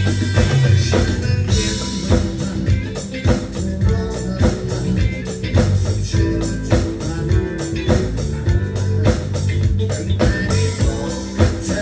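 Rock band music with guitar and a steady drum beat, the drums played on an electronic percussion pad and kick pedal over a backing track of the song.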